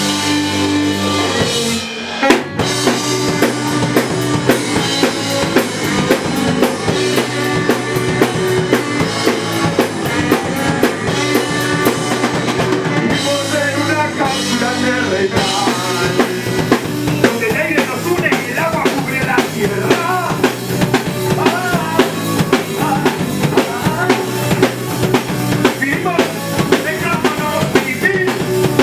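Live band music: a drum kit keeps a steady beat while a saxophone plays over it.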